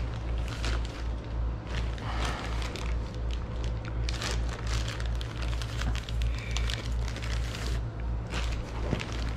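Clear plastic packaging crinkling and rustling in irregular short crackles as it is handled and pulled off a newly delivered accordion, over a low pulsing hum.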